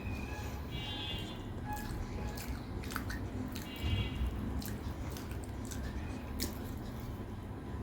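Close-miked chewing and mouth sounds of a person eating, with scattered small wet clicks and smacks.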